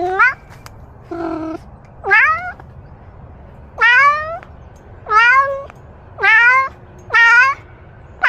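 A cat meowing over and over: about seven meows roughly a second apart. Most of them rise sharply in pitch.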